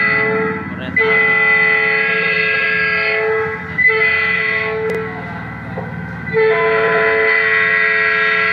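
Electronic telolet horn module sounding through a toa horn loudspeaker: loud, steady horn tones held for a few seconds at a time, broken by short gaps about a second in, near the four-second mark, and a softer stretch just past the middle.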